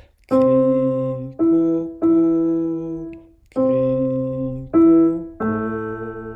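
Intro music on a keyboard: six sustained chords, each struck and left to ring, the last fading out.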